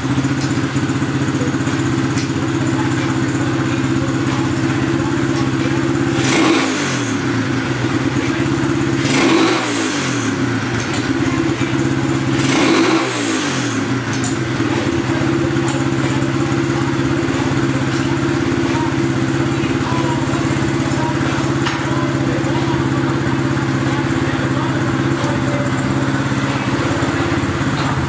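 Lifan 125cc single-cylinder four-stroke pit-bike engine idling steadily through a stock exhaust with spark arrestor. It is blipped three times, each rev rising and falling back to idle within about a second.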